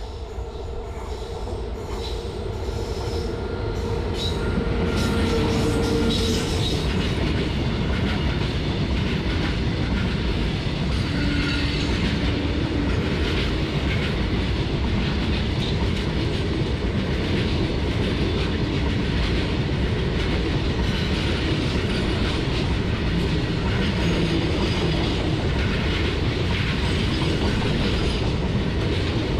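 A WAG-7 electric locomotive and its loaded freight wagons passing close by, the rumble growing over the first few seconds and then holding steady as the wagons roll past. The wheels clatter steadily over the rail joints, with brief squeals now and then.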